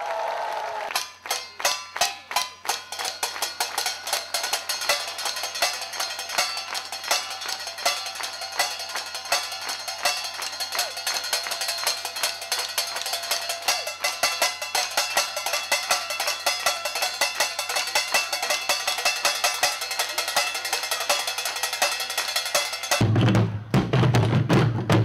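Drumsticks striking a row of metal pots: separate clanging hits at first, quickly building into a fast, dense, ringing roll. About two seconds before the end it cuts to heavier, deeper beats on large drums.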